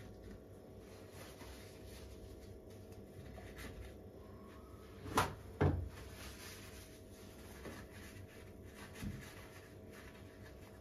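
Two sharp knocks about half a second apart a little past five seconds in, amid faint taps and clicks of hands working at a stainless steel gas hob.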